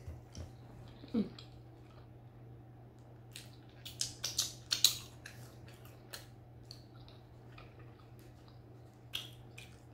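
Close-up eating sounds: chewing and wet lip smacks, with a quick run of loud smacking clicks between about four and five seconds in as buttery fingers are sucked clean. A brief falling vocal sound comes about a second in.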